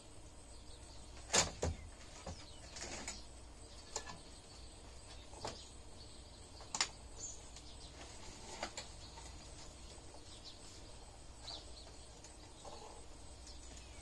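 Rope and metal hooks being handled while hanging a swing prop: scattered sharp clicks and knocks, about half a dozen, the loudest near the start, over a faint steady background.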